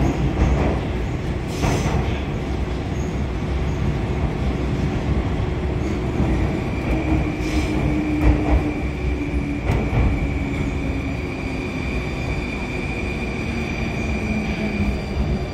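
81-725.1 'Baltiets' metro train running, heard from inside the car: a steady rumble with a few knocks from the rails. From about six seconds in there is a high steady whine, and a lower whine that falls in pitch in steps as the train slows into the terminal station.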